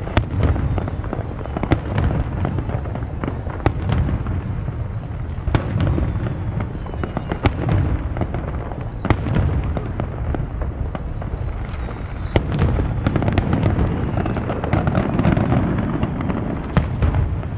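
Aerial fireworks bursting: a rapid, irregular series of sharp bangs and crackles over a continuous low rumble.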